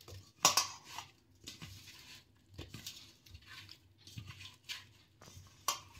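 A hand mixing cut soya chaap pieces coated in besan and spices in a stainless steel bowl: irregular soft rubbing and tapping as the pieces are tossed, the loudest about half a second in.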